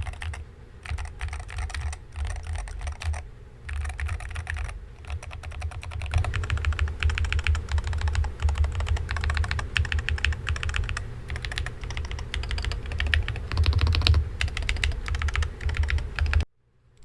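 Rapid typing on a MadLions MAD60 HE magnetic-switch keyboard, a fast run of key clicks and clacks in short bursts that becomes steadier and louder about six seconds in. The typing cuts off suddenly near the end.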